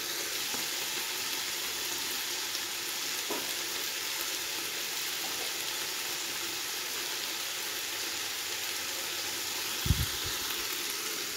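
Sliced onion and carrot sizzling steadily in oil and sauce in a nonstick pan. A single soft thump comes near the end.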